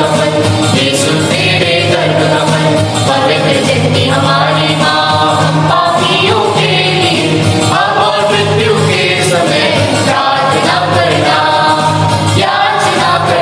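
A devotional hymn sung with musical accompaniment: voices carry the melody over steady held low notes.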